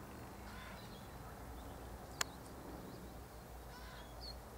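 Faint distant bird calls, a few short chirps, over a low steady rumble, with one sharp click about two seconds in.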